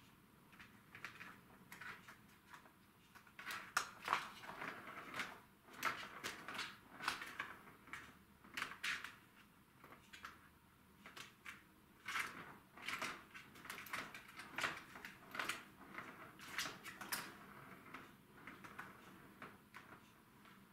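A cat batting the ball around a Catit Senses Super Roller Circuit, a plastic track toy: irregular clicks, knocks and rattles of the ball and paws against the plastic. The clatter is busiest from about four seconds in until about seventeen seconds.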